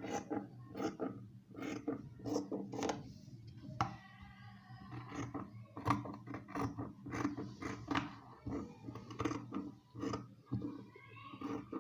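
Tailoring scissors cutting through dress fabric, a run of repeated snips.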